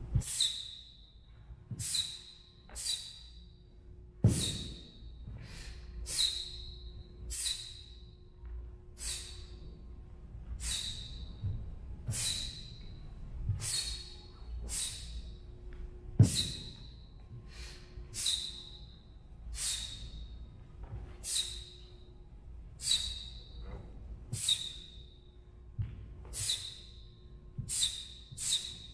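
A taekwondo practitioner's sharp hissing exhalations, one with each technique of the pattern, about one a second. Twice, about four seconds in and again about sixteen seconds in, a heavy thump of a foot landing on the floor comes with the breath.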